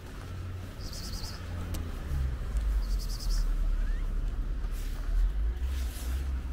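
A small bird singing a short, rapid high trill about every two seconds, over a steady low rumble that swells louder partway through.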